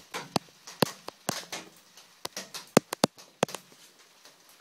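Rain dripping on a shed roof: about a dozen irregular sharp taps over a faint hiss, thinning out in the last second.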